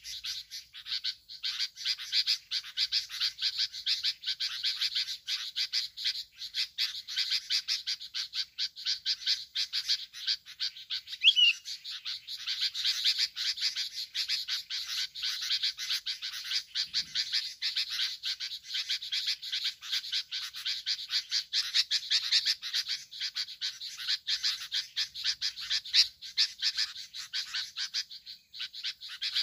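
A dense, steady chorus of rapid clicking calls from small animals, with a short gliding bird call note twice, near the start and about eleven seconds in.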